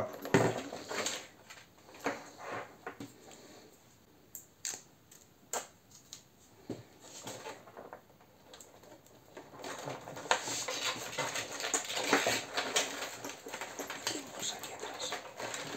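Hands working wires and connectors into a 3D-printed plastic wing's fuselage: scattered small clicks and knocks, then a busier stretch of rustling and tapping against the plastic over the last third.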